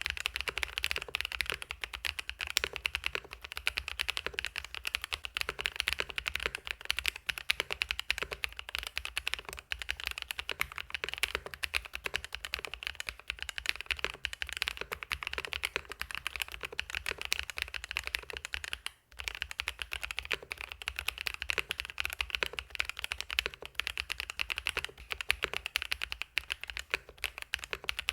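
Mechanical keyboard fitted with fully lubed Grain Gold Lemon Cedar switches being typed on, fast and continuous, with one brief pause partway through.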